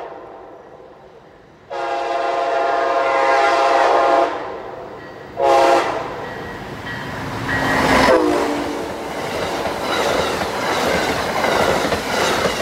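Amtrak passenger train passing: the locomotive sounds its horn in a long blast about two seconds in and a short one just before six seconds. Around eight seconds in, the locomotive goes by with a drop in pitch, followed by the passenger cars rolling past with a steady clickety-clack of wheels on the rails.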